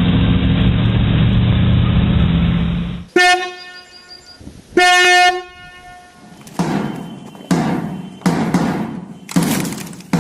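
A vehicle horn honks twice, two short toots about a second and a half apart, after a steady low rumble like a running engine. Then come regular thumps, roughly one a second.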